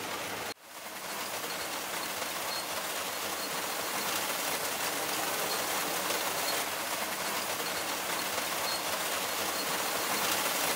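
Rotary indented-cylinder seed sorter running, with a steady hiss and rattle of wheat and lentil seed pouring through the turning cylinder and screw auger. The sound drops out briefly about half a second in, then runs on evenly.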